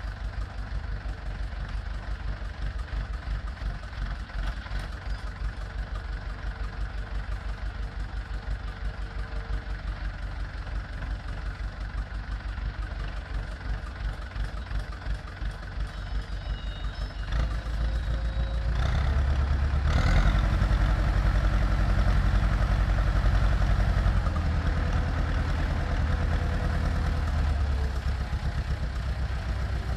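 Small farm tractor's engine idling with a steady rapid low pulsing, then running louder and heavier from a little past halfway as it drives the hydraulics of a bale loader arm lifting a round hay bale.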